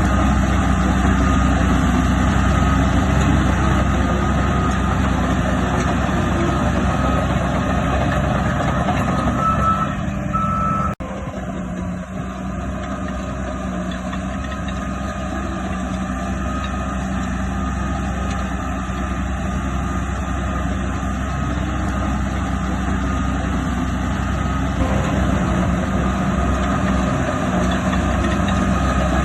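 Heavy diesel engines of earthmoving machines running steadily, with a reversing alarm beeping over them. The engine sound drops abruptly about eleven seconds in, then builds back up.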